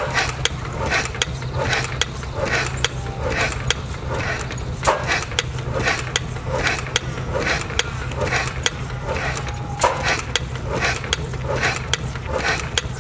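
Vintage Ronaldson-Tippett stationary engine running, its valve gear clicking about three times a second over a steady low hum, with a louder knock about every five seconds.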